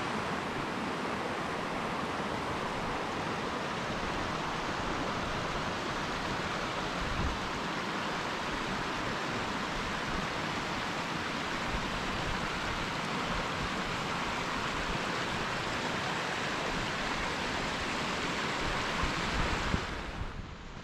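Steady rushing of a small mountain stream running over rocks, fading out near the end.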